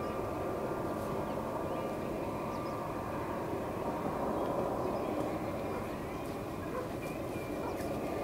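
A steady, distant engine drone with faint held tones running under it.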